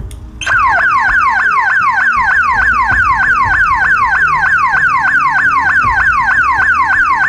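Old 12-volt house-alarm siren horn, fed through its second positive wire, sounding its pulsating tone: a rapid falling sweep repeated about three to four times a second, like a police car or ambulance siren. It starts about half a second in, after a brief click.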